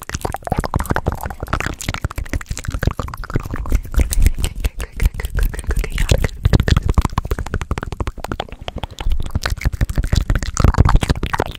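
Fast, wet ASMR mouth sounds close to a microphone: rapid clicking, smacking and popping, with low thumps as breath and lips hit the mic.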